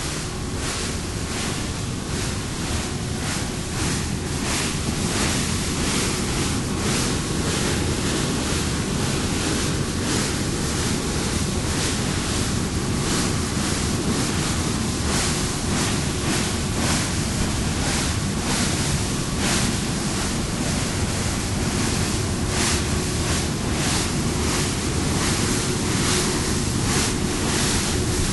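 Water rushing and splashing along the hull of the double-deck ferry Prins Johan Friso under way, with wind on the microphone. A faint steady hum from the ship's machinery runs underneath.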